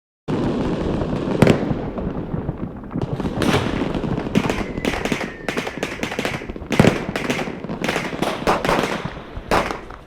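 Small firecrackers from a cheap assortment going off in a fast, dense crackling run, with louder single bangs among them. It starts abruptly a moment in and keeps going for about ten seconds.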